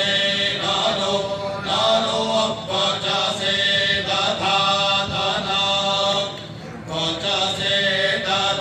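Vedic mantras recited in unison by a group of men's voices, held on steady pitches. There is a short break for breath about six and a half seconds in.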